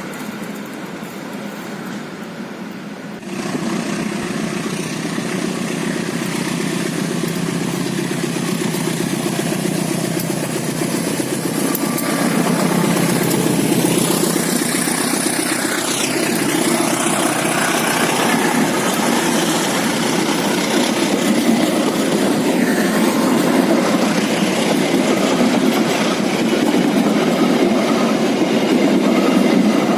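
Passenger train hauled by a diesel-electric locomotive passing on the rails, a steady rumble with rail and wheel noise that jumps louder about three seconds in.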